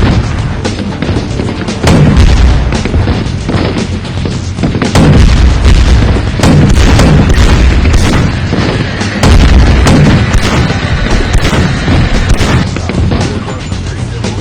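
Loud background music with several heavy booms, the loudest coming in about 2, 5, 6.5 and 9 seconds in.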